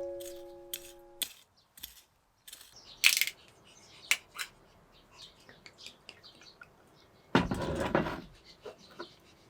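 A few sharp clinks and knocks of things being handled, then a louder rushing, rustling noise lasting under a second near the end. The last notes of background music fade out at the start.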